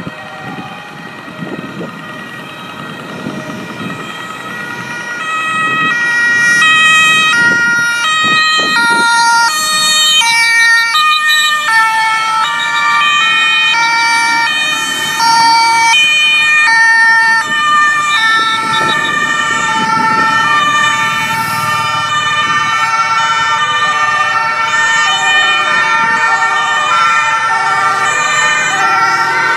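Several emergency-vehicle sirens from a police motorcycle-escorted convoy, sounding overlapping alternating two-tone (high-low) wails. They swell loud about five seconds in as the convoy approaches and passes, over road traffic noise.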